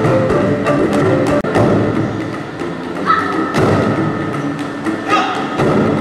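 Percussion ensemble playing a fast, pitched rhythm on rows of tuned pipes struck at their open ends with paddles: dense hollow, pitched thumps, several to the second.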